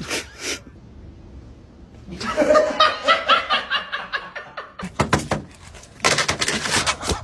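A person laughing in quick, repeated bursts for a couple of seconds, followed by a few sharp knocks and a short burst of noise near the end.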